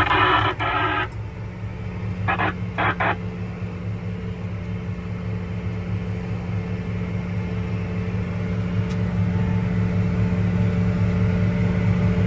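Farm tractor engine running steadily with a low pulsing hum, growing slightly louder toward the end. There are a few short bursts of higher-pitched noise in the first three seconds.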